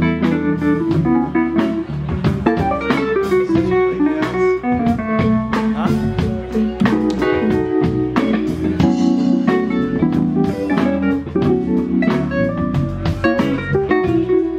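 A live band plays an instrumental groove: electric guitar and stage keyboard over bass and drums, with a steady beat.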